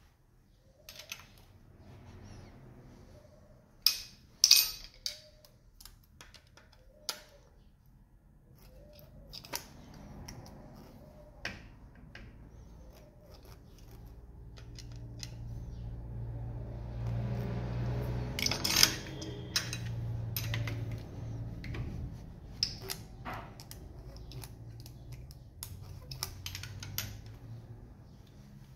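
Metal hand tools clicking and clinking on the exposed valve train of a Honda R16 engine as the rocker-arm valve-clearance adjusters are set with a screwdriver, ring wrench and feeler gauge. The sharp clicks come at irregular intervals, the loudest about four seconds in. A low steady hum builds in the background from about halfway through.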